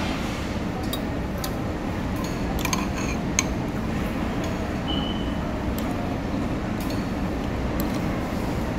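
A metal spoon and fork clinking now and then against a soup bowl during eating, a few scattered clinks with the sharpest about three and a half seconds in, over a steady low background hum.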